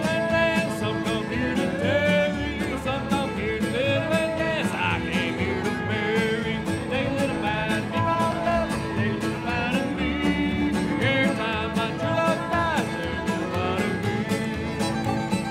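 Old-time string band playing a contra dance tune, a fiddle carrying the melody over a steady strummed beat.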